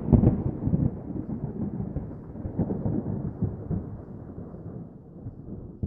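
Rolling thunder: a low rumble with crackles that slowly dies away.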